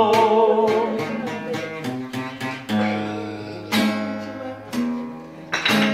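Acoustic guitar strumming the instrumental break of a song, with a bass note about once a second. A held sung note with vibrato fades out about a second in.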